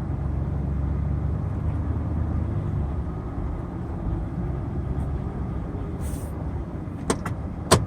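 Ford F-150 pickup driving on a bumpy dirt road, heard from inside the cab: a steady low engine and road rumble, with a few sharp knocks near the end.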